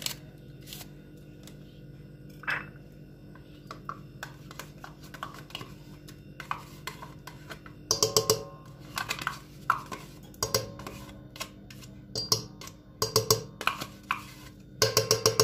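Metal spoon scraping and clinking against a stainless steel mixing bowl as thick whipped cream is scooped out. The clinks come in quick clusters, mostly in the second half, over a steady low hum.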